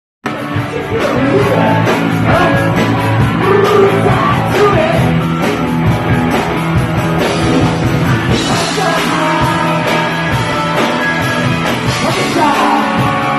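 Punk rock band playing live and loud: distorted rock band sound with a steady drum beat and singing, cutting in suddenly just after the start.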